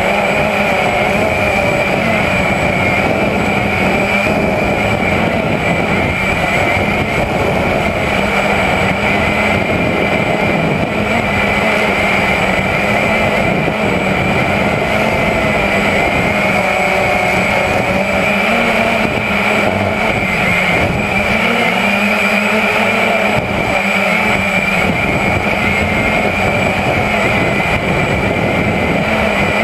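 Walkera QX350 quadcopter's four electric motors and propellers whining steadily, heard close up through the drone's own onboard camera. The pitch wavers slightly about two-thirds of the way through as the motors adjust.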